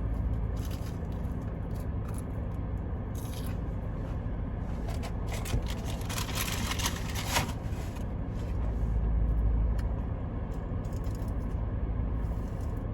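Eating a fried onion ring, crunching and chewing, with scattered crackles from the food wrapper and a louder rustle about five to seven seconds in. Under it runs the steady low hum of a car's interior.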